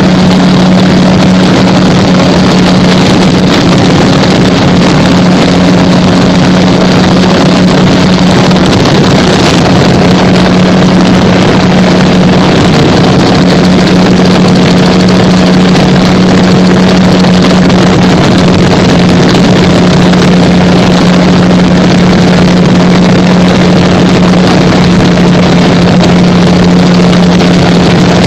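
Gyrocopter engine and propeller running loud and steady at one unchanging pitch, as in cruising flight, over a constant rush of wind noise.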